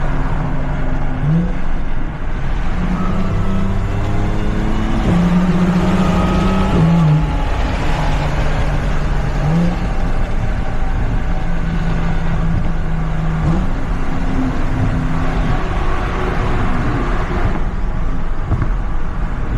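Audi B8 S4's supercharged 3.0-litre V6 under way, its note jumping to a new pitch several times as the gears change, over road and wind noise. It is pulling hard with fresh spark plugs fitted against a multiple-cylinder misfire.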